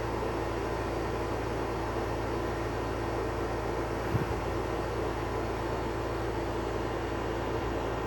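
Steady droning background noise with a low hum, and a brief soft thump about four seconds in.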